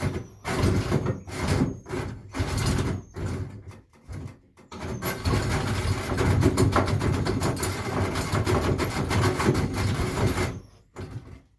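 Power drill cutting a hole through a roof under light pressure, run in short stop-start bursts for the first few seconds, then held on steadily for about five seconds before it stops.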